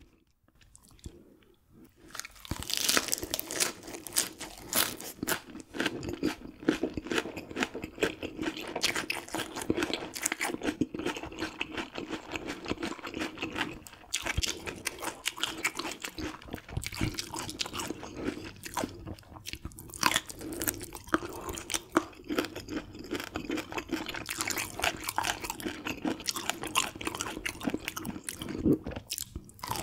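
Close-up chewing of raw gizzard shad eaten bones and all, with a dense run of crisp crunching and crackling as the small bones break. It starts about two and a half seconds in after a brief near-quiet.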